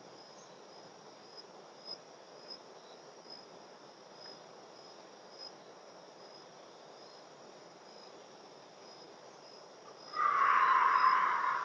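Crickets chirping steadily and faintly, a thin high chirp repeating at an even pace. Near the end, a much louder hissing sound lasting about two seconds.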